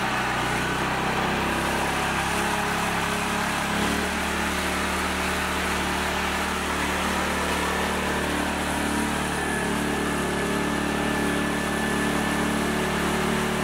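Small engine of a mini tractor running steadily under load while driving through mud. Its note shifts slightly lower about four seconds in.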